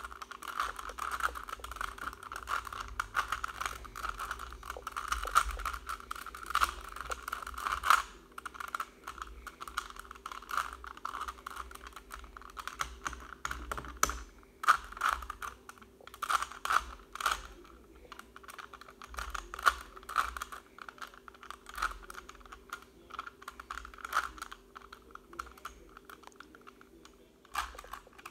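Rubik's cube layers being turned by hand: quick, irregular runs of small plastic clicks and clacks, with brief pauses between bursts of turns.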